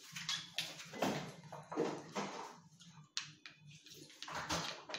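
People eating at close range, slurping papaitan soup from spoons and bowls, with scattered irregular mouth noises and a short sharp click a little after three seconds.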